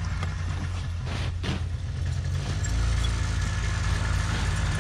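Snowmobile engine idling steadily as a low hum, its pitch shifting slightly about halfway through, with two brief rustles a little over a second in.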